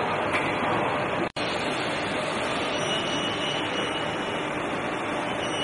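Steady machine running noise, typical of an Ermaksan HVR CNC hydraulic guillotine shear idling with its hydraulic pump on, with no cutting strokes. The sound cuts out for an instant a little over a second in.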